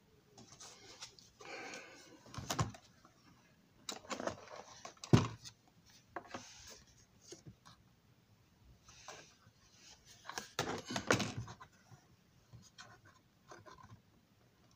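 Model building wall sections being handled and fitted together by hand: scattered clicks and knocks, the loudest about five seconds in and a quick cluster around ten seconds, with short soft rustles between.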